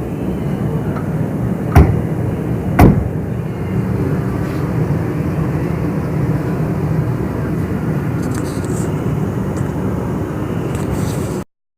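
A steady low mechanical rumble, with two sharp knocks about a second apart near the start; it cuts off abruptly near the end.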